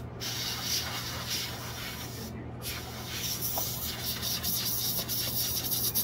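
Compressed-air duster can blowing dust out of a PC component through its straw nozzle: long hissing sprays, broken by two short pauses, one at the start and one about two and a half seconds in.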